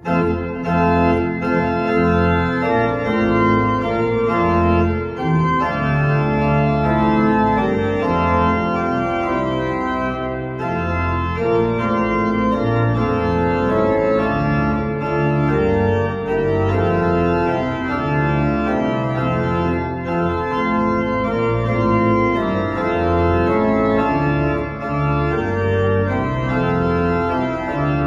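Church pipe organ playing chords on the manuals over a deep pedal bass line, with sustained notes changing every half second or so.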